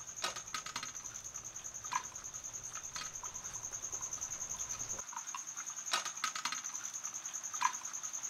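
Crickets chirping in a steady, high, pulsing trill, with a few light clinks of steel plates and tumblers as two people eat by hand.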